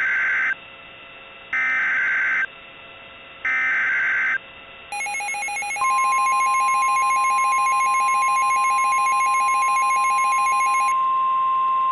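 Emergency Alert System SAME header on NOAA Weather Radio: three one-second bursts of screeching digital data tones about two seconds apart. About five seconds in a buzzy pulsing tone starts, joined a moment later by the steady 1050 Hz weather radio warning alarm tone, which carries on after the pulsing stops near the end.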